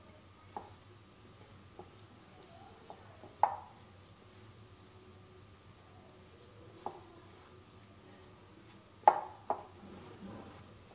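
A continuous high-pitched, rapidly pulsing cricket trill, with a few short sharp knocks of a hand against a glass mixing bowl as flour and butter are rubbed together by hand.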